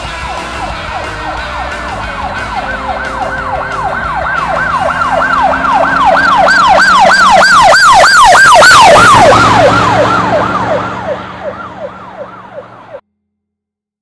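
Emergency-vehicle siren in a fast yelp, about three falling sweeps a second. It grows louder to a peak about two-thirds of the way through, then fades and cuts off suddenly near the end.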